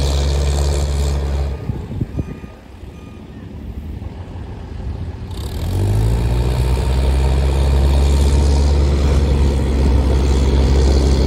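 Pulling semi truck's diesel engine at full throttle, a loud, steady drone that drops away about one and a half seconds in, then climbs again in pitch about six seconds in as the truck pulls the sled, and holds steady.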